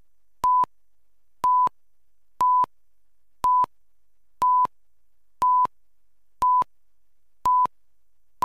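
Countdown leader beeps: one short, steady, high test-tone beep each second, nine in all, each starting and stopping with a sharp click.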